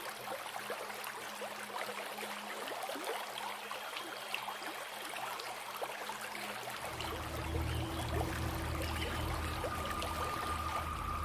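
Flowing river water, trickling and lapping with many small splashes. About seven seconds in, a low steady hum joins it, and near the end a faint steady tone.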